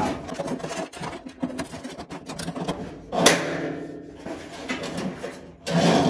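Steel accelerator cable being fed by hand through the dashboard of a VW Beetle, scraping and clicking against the metal. There is one louder, longer scrape about three seconds in.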